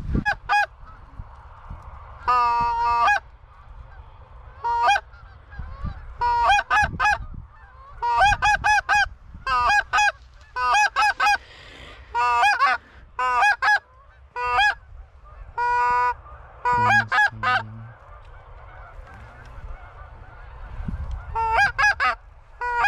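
Hunters' goose calls blown in quick series of loud honks and clucks, mostly two or three notes at a time, with a longer drawn call a couple of seconds in, calling to incoming geese.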